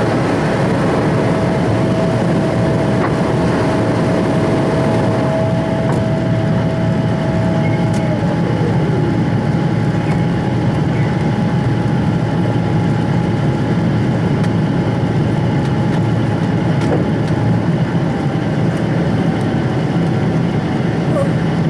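Boeing 777-240ER's twin jet engines heard inside the passenger cabin as a loud, steady rush, with a thin whine that glides down in pitch about eight seconds in while a second whine holds steady.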